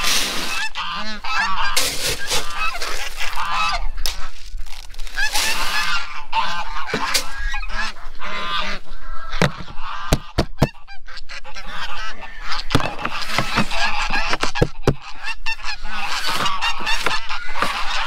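Geese and other farmyard fowl honking and calling over one another without a break, with a few sharp knocks about ten seconds in.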